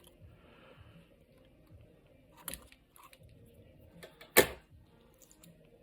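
Small hard objects knocked against each other as tools are handled at a soldering bench: a light click about two and a half seconds in and a louder, sharp knock a couple of seconds later.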